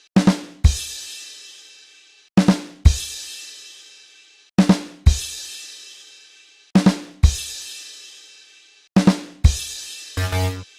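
"Ba-dum-tss" rimshot drum sting: two quick drum hits and a cymbal crash that rings out. It is repeated five times, about every two seconds. Near the end a different short pitched sound effect begins.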